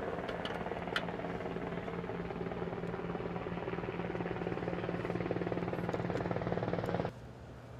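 Steady machinery noise with a low hum, cutting off abruptly near the end.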